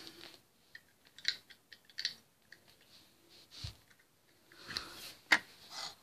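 Small plastic Lego pieces being handled: scattered light clicks and rustles, with the sharpest click about five seconds in as the bricks are moved on a wooden table.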